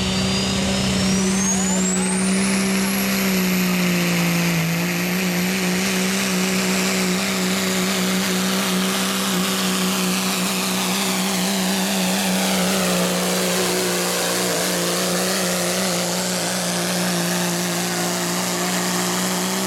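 Diesel pickup truck at full throttle pulling a weight-transfer sled, its engine running with a steady, loud note. A high turbocharger whine climbs over the first three seconds and then holds. The engine pulls down slightly about four seconds in as it takes the load.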